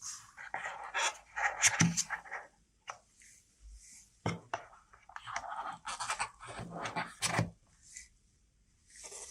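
Handling noise: irregular rustling and scraping, with a few sharp clicks or taps about 2, 4 and 7 seconds in.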